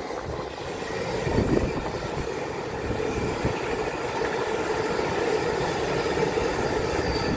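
Great Western Railway Intercity Express Train (a Class 800-series bi-mode unit) passing at speed on its underfloor diesel engines, with its wheels rolling on the rails. It grows louder over the first second or two, then holds steady as the coaches go by.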